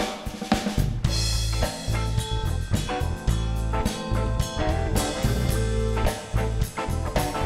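Live blues band playing the instrumental intro of a song: electric guitar, electric bass, drum kit and keyboard, all coming in together at the start with a steady beat.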